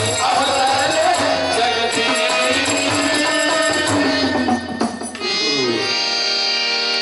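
Marathi devotional bhajan sung by a group of male voices with tabla and harmonium. A little after five seconds in, the music settles onto one long held note.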